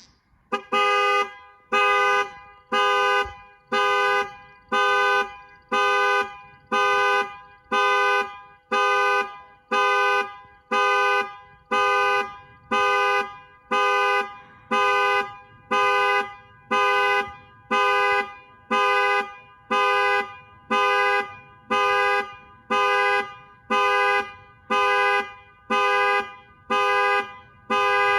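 2020 Chevrolet Bolt EV panic alarm: the car's two-tone horn honks in a steady rhythm, about once a second, each blast echoing away before the next.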